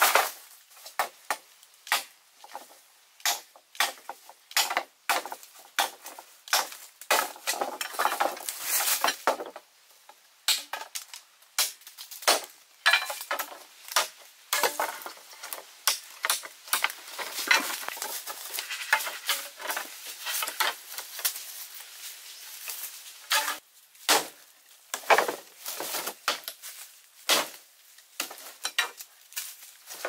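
Irregular sharp knocks and clatter of bamboo: poles dropped onto a pile and knocking together, and a machete chopping and splitting into bamboo.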